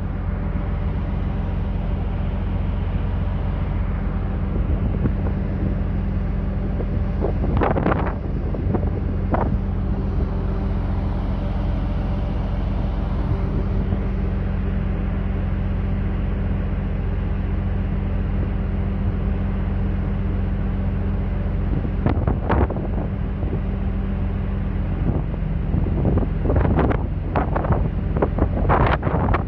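Steady low machinery hum of an oil tanker under way, with wind buffeting the microphone in gusts about a third of the way in, past the middle, and several times near the end.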